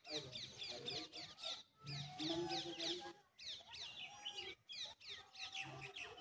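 Birds chirping: many quick, high calls, each sweeping downward in pitch, repeating densely.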